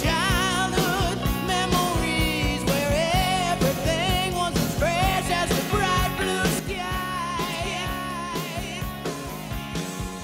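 Background song with a sung vocal melody over a steady drum beat, gradually getting quieter in the second half.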